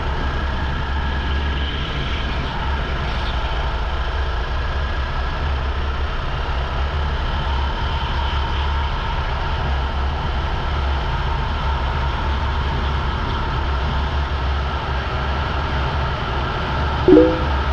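Rental go-kart engine running flat out on a qualifying lap, a steady drone with little change in pitch. A short, loud chirp cuts in near the end.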